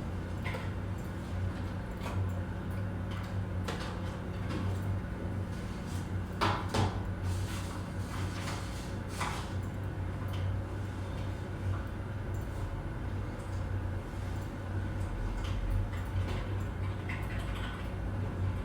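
Office ambience: a steady low hum with scattered clicks and knocks over it, the loudest cluster of knocks coming between about six and nine and a half seconds in.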